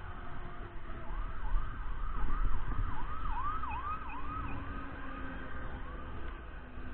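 A siren with a fast rising-and-falling wail, about two to three cycles a second, growing louder and then fading away as the vehicle passes, over the low rumble of road traffic.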